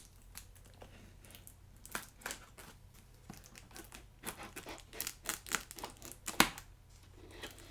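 Cardboard packaging being opened and handled: a scattered string of scraping, rustling and crinkling noises with short clicks, the sharpest about six seconds in.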